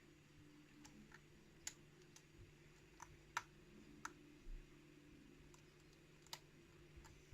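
Faint, irregular small metallic clicks of a lock pick and tension tool working the pins inside a challenge lock's core, about ten ticks spread unevenly, over a faint steady hum.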